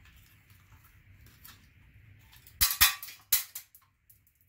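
A quick cluster of three or four sharp plastic clicks and snaps about two and a half seconds in, from handling and snapping parts of an LED wafer light's plastic junction box.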